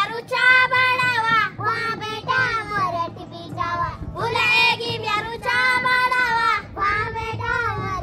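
Children singing a song, in sung phrases about a second long with short breaks between them.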